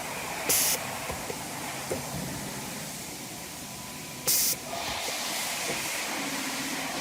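Glass-cutting CNC machine's pneumatics: two short sharp blasts of compressed air, about four seconds apart, over a steady hiss, with a few light clicks.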